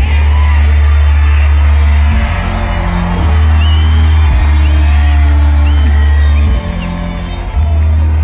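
Background music with a heavy, steady bass line and short high sliding notes over it.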